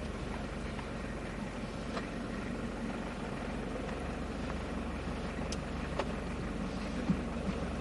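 Steady low rumble of an idling car engine, with a few faint clicks and knocks over it.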